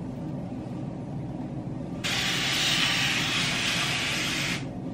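A spray bottle misting water onto hair: one continuous spray with a steady hiss, starting suddenly about two seconds in and cutting off sharply about two and a half seconds later.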